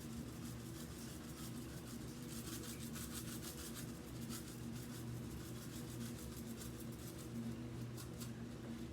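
Faint scratchy rustling with light ticks as grains of rice are sprinkled onto the floor, over a steady low hum.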